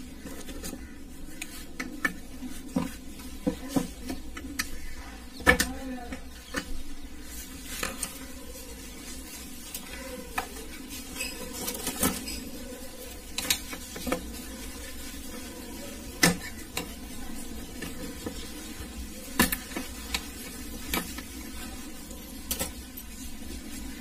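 Irregular light clicks and taps as an aluminium heatsink holding a TDA7297 audio amplifier IC is handled against a TV circuit board, over a steady low hum. The loudest click comes about five and a half seconds in.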